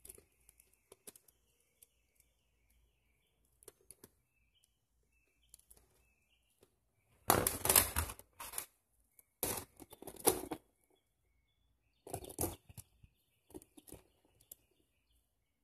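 Metal RC tank track links clinking and rattling as they are handled: scattered light clicks, then several bursts of louder clattering in the second half.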